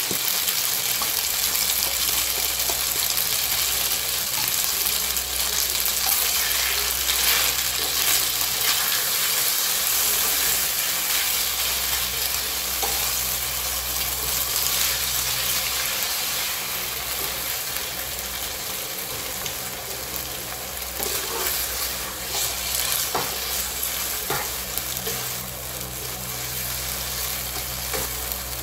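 Fettuccine and tomato sauce sizzling in a hot nonstick frying pan while being stirred and tossed with a wooden spatula, with light scattered clicks of the spatula against the pan.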